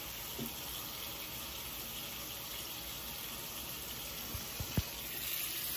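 Steady rush of running water, with a few faint clicks about four and a half seconds in.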